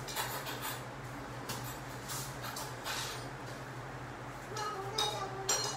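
Aluminium foil wrapper of a hamburger rustling and crinkling in short bursts as the burger is handled, over a steady low hum of the room.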